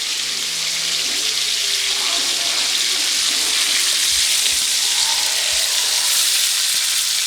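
Beef tenderloin fillets sizzling steadily in hot oil in a pan while their sides are seared.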